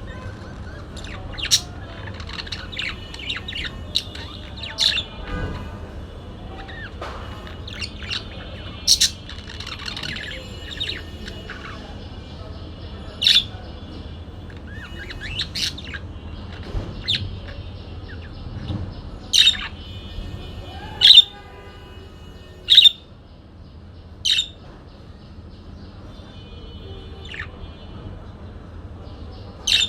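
Parakeets chirping and chattering steadily, broken by a series of short, shrill squawks that are loudest about two-thirds of the way through.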